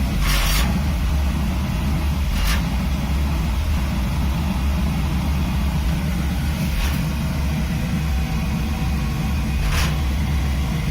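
Oil-fired boiler burner running with a steady, loud low rumble while its air setting is tuned for combustion. Four brief hissy noises sound over it.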